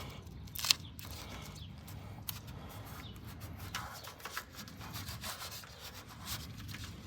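Rubbing and scraping handling noises with scattered clicks, one sharp click about a second in standing out as the loudest.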